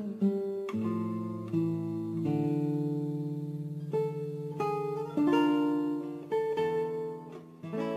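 Background music: an acoustic guitar playing a slow melody of plucked notes over lower held notes.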